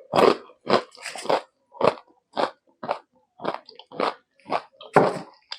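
Close-miked chewing with crunching bites in a steady rhythm of about two chews a second. The loudest crunch comes near the end.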